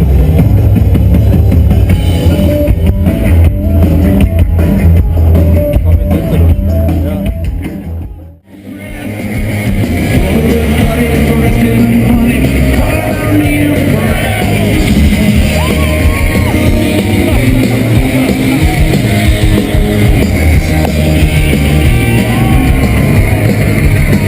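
Loud rock music with drums, guitar and singing, heavy in the bass. About eight seconds in it dips out abruptly, then carries on with less bass.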